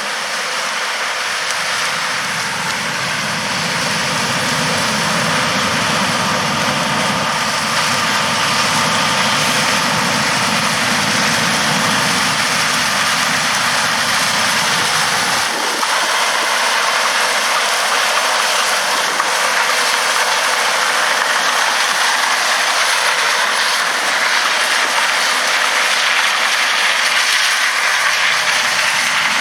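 John Deere S680 combine running steadily while harvesting corn: a loud, even mechanical rush with a lower rumble that drops away about halfway through and returns near the end.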